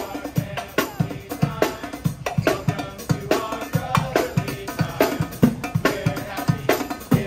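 Live brass band playing, carried by its drums: a steady beat of snare and bass drum strikes, several a second, with fainter brass notes held underneath.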